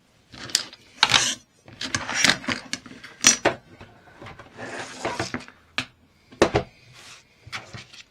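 Scissors snipping through paper, with rustling as the paper is handled: irregular sharp snips and crinkles, one longer rustle around the middle.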